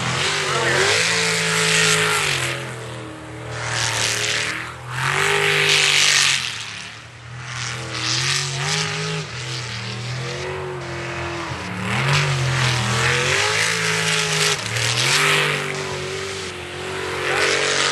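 Sprint race boat engine revving hard and easing off over and over as the boat runs the course, with bursts of rushing noise.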